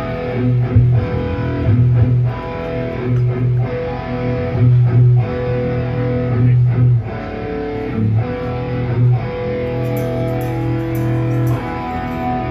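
Band music played through a stage PA system during a sound check: electric guitar over a bass line, with steady rhythmic hits.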